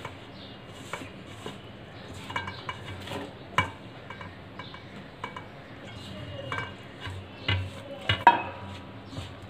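Flour being rubbed and mixed by hand in a glass bowl, with scattered light knocks and clinks against the glass. Near the end a pan knocks against the bowl's rim as sugar syrup is poured in, the loudest clinks.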